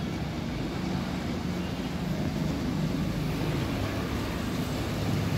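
Train coaches rolling along the rails past a station platform: a steady low rumble of wheels on the track.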